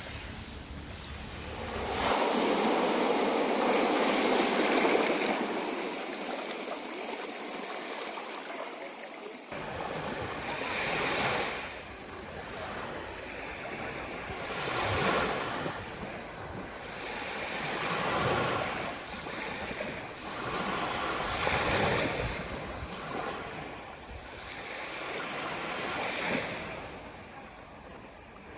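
Sea surf: waves breaking and washing up the shore. A louder, steady rush for several seconds, then surges swelling and ebbing every three to four seconds.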